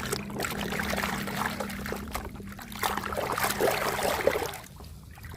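Water pouring and splashing over a muddy toy car as it is washed by hand, with small clicks of the handled plastic, over a steady low hum; the washing stops about four and a half seconds in.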